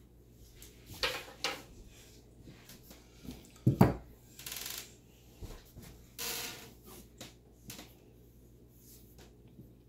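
Casino chips and the ON puck being set down and slid across the felt of a craps table: scattered clicks and short sliding scrapes, the loudest a sharp knock a little under four seconds in, then small clicks as the dice are picked up near the end.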